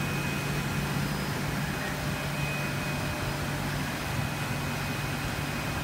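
Steady low hum with a faint high-pitched whine over an even hiss, from aquarium pumps and filtration running.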